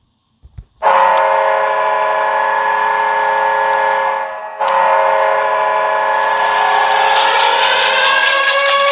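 Binghamton Devils' hockey goal horn: a loud, held blast starting about a second in and lasting about three and a half seconds, a short break, then a second long blast. Music, the goal song, comes in under the horn near the end.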